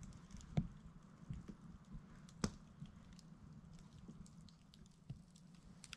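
Wood campfire crackling faintly, with scattered pops; the two sharpest come about half a second and two and a half seconds in. A low steady hum runs underneath.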